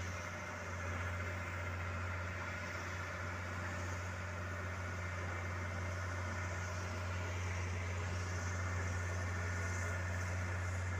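Train engine idling steadily below: an even, unchanging low hum with a constant rushing noise over it.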